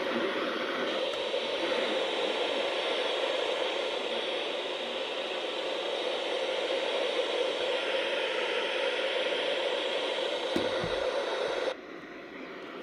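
Steady radio static hiss from a receiver, with a faint hum band in the noise, cutting off suddenly about twelve seconds in. There is a brief low knock shortly before it stops.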